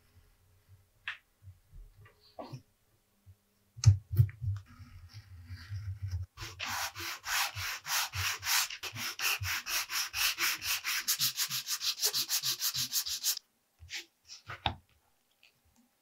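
Edge of a piece of vegetable-tanned leather being sanded on a sandpaper block in quick back-and-forth strokes that speed up, stopping suddenly about 13 seconds in. A couple of knocks come a few seconds before the sanding starts.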